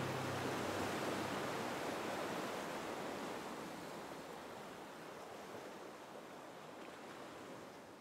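Ocean surf washing in a steady hiss, slowly fading out. The last notes of music die away right at the start.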